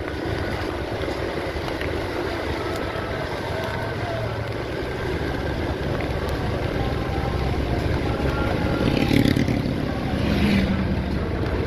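Vehicle engine and road noise while travelling along a road, steady throughout, with two brief louder swells near the end.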